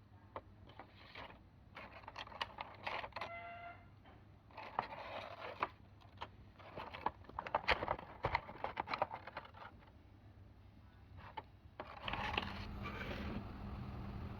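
Hands unboxing small plastic toys: clusters of clicks, scrapes and rustles, with a brief squeak about three and a half seconds in. A steady low hum comes in near the end.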